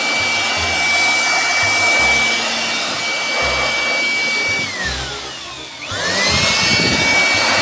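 Electric air blower running at full speed with a steady high whine, blowing water off a wet bicycle frame. About five seconds in it winds down, its whine falling, then spins back up to full speed.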